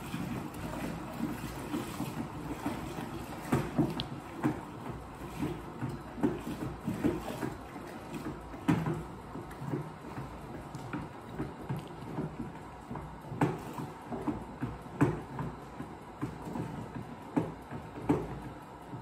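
Tap water running from a kitchen tap into a plastic fermenting bucket of malt beer wort while it is stirred with a wooden spoon, the spoon knocking against the bucket at irregular moments. This is the wort being topped up with tap water and mixed.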